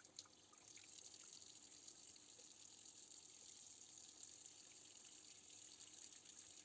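Very faint water running from a kitchen tap onto soapy hands and fabric, with a few tiny ticks of splashing; near silence overall.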